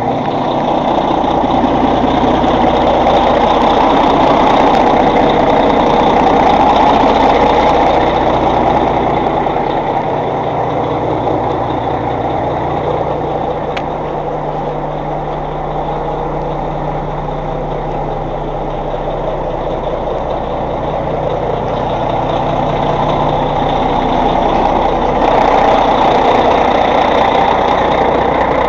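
Caterpillar C15 inline-six diesel in a Kenworth T600 idling steadily while still cold, just after a cold start at 14 degrees.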